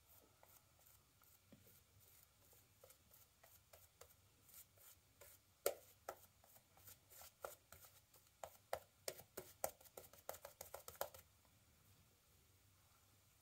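Razor scraping through lather and stubble: faint scattered ticks at first, then quick runs of short scratchy strokes for about six seconds, stopping near the end.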